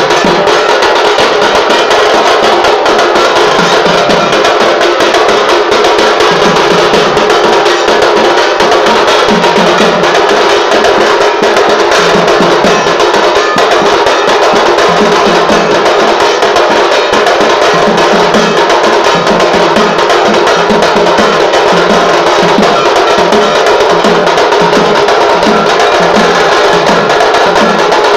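Tasha drums played loud and fast with sticks, a dense, unbroken rattle of strokes over a regular beat of lower drum strokes.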